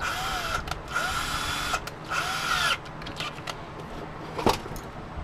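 Power drill driving a regular Torx bit, run in three short bursts with a steady motor whine, backing out tamper-resistant screws. A single knock follows near the end.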